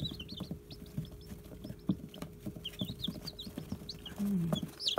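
Young chicks peeping: many short, high cheeps that fall in pitch, several a second, over a faint steady hum. A brief low hum comes near the end.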